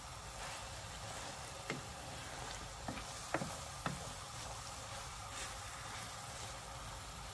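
Stir-fried noodles, vegetables and duck breast sizzling faintly in a pan while being stirred with a wooden spatula, with a few light knocks of the spatula against the pan between about two and four seconds in.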